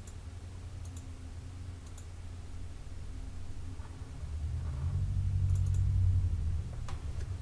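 Computer mouse clicking: about five short, sharp clicks spread through the stretch, two of them close together about two-thirds of the way in, over a low hum that swells for a couple of seconds midway.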